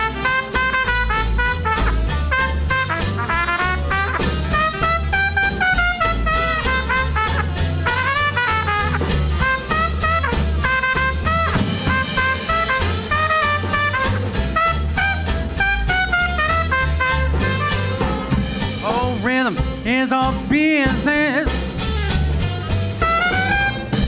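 Small swing jazz band playing an instrumental passage, with the trumpet leading over saxophone, drum kit and bass. The music cuts off at the very end.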